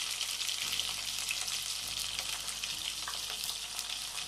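Crushed garlic and quartered brinjal frying in hot oil in a pan: a steady sizzling hiss with scattered crackles.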